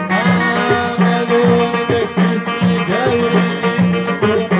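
Live Moroccan Amazigh folk ensemble playing: plucked banjo and strings over a steady beat of frame and hand drums, with a singer's voice wavering above.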